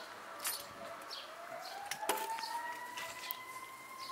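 Siren sliding slowly up in pitch from about a second and a half in, then holding, with a few sharp clinks of hand tools, the loudest about two seconds in.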